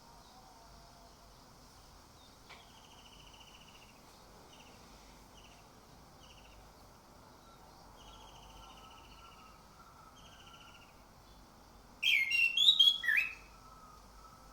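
Orange-headed thrush song: a series of faint, short trilled phrases repeated every second or so, then about twelve seconds in a loud, quick burst of varied, sharply changing notes lasting just over a second.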